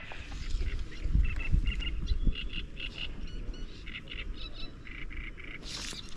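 Waterfowl calling: a run of short, repeated honking calls, several a second, over a low rumble.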